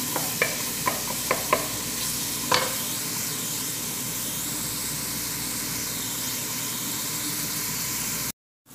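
Chopped onions sizzling steadily in hot oil in a metal pan, being fried until golden brown. A wooden spoon knocks against the pan several times in the first two and a half seconds. The sound cuts off suddenly just before the end.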